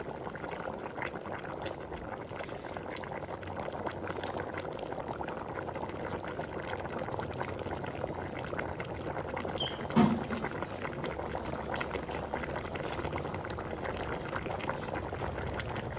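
A large pot of basmati rice and chicken in red spiced stock boiling hard, with steady bubbling and popping as the rice cooks in the liquid for chicken biryani. One brief louder sound about ten seconds in.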